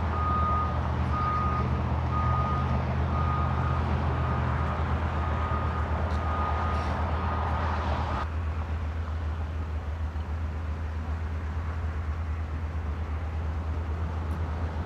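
Vehicle engine idling with a steady low hum, under a repeating high electronic beep about twice a second. The beeping and some of the hiss cut off suddenly about eight seconds in, and the engine hum carries on.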